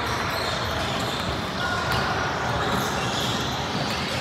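Basketball gym ambience: a steady wash of distant voices and chatter echoing around a large hall, with a few faint clicks and knocks and no single loud event.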